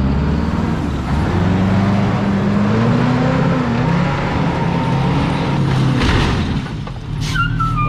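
Fire truck's engine revving under load, its pitch rising and falling as the truck is driven hard in reverse. About six seconds in there is a brief loud rush of noise, and then the engine settles to a steady lower note.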